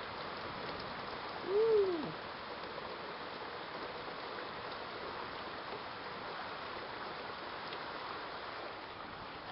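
Heavy rain pouring down, a steady hiss, with one short hoot-like tone that rises and falls about a second and a half in.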